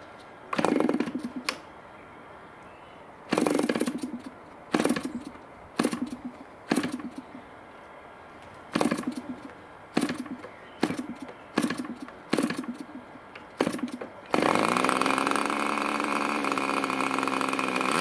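Two-stroke OS Max FP40 model glow engine being hand-flicked to start: about nine short bursts of firing, each dying out within a second. About fourteen seconds in it catches and runs steadily.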